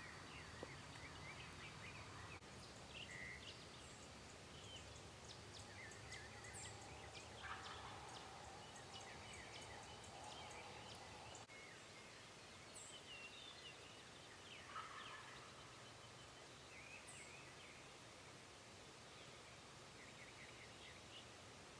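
A wild turkey tom gobbling faintly, twice, about seven and fifteen seconds in, each gobble a rapid rattle lasting about a second, with small songbirds chirping throughout.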